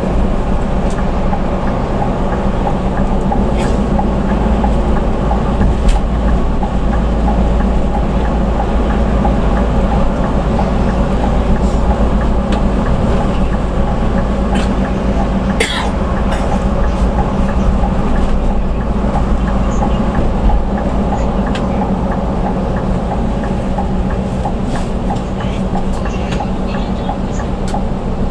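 Steady drone of a bus's engine and road noise heard from inside the cabin while driving, with a few sharp clicks and rattles, the sharpest about midway.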